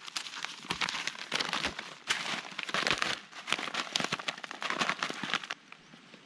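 Crinkly plastic food packaging being handled: a dense, irregular crackling full of sharp clicks that stops about five and a half seconds in.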